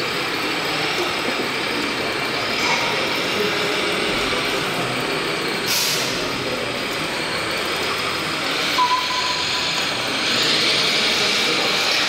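Steady noise of a busy exhibition hall. About six seconds in there is one short, sharp hiss, and a brief beep comes near nine seconds.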